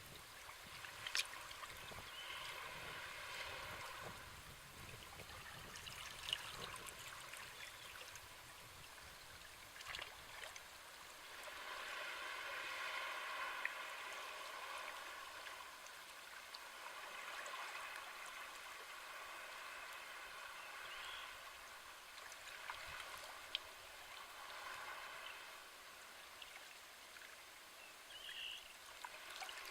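Small sea waves washing up a shore and draining back, the wash swelling and fading every several seconds, with a few sharp clicks.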